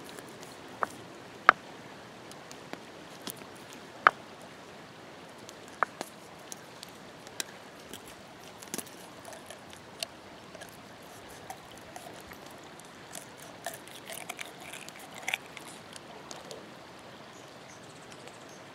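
Fish-fillet knife cutting a fillet from a smallmouth bass on a flat rock, giving scattered sharp clicks and ticks. Behind them runs the steady wash of a creek.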